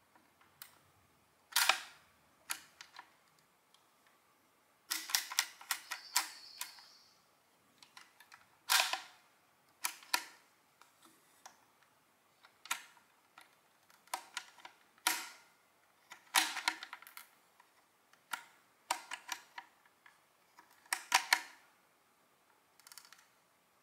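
The bare mechanism of a Saldorita mechanical adding machine, a Swedish adder of about 1938–39, clicking and clacking as it is worked by hand. The sounds come in short bursts every one to three seconds, some a single sharp click and some a quick run of clicks.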